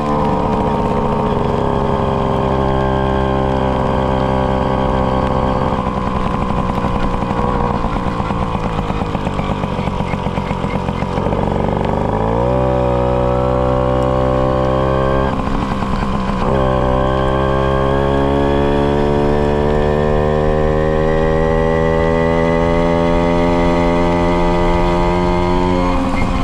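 Tomos moped's small two-stroke engine with a Tecno Bullet expansion exhaust, running under way. Its speed sags slowly for about twelve seconds, picks up sharply, drops away for a moment, then climbs steadily.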